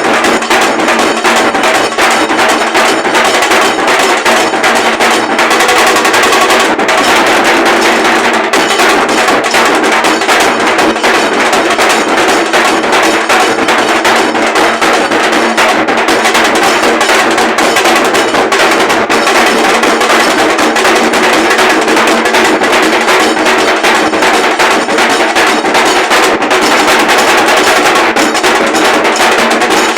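A dhol group playing loud, fast, continuous drumming, the strokes packed so densely that they run together like a roll.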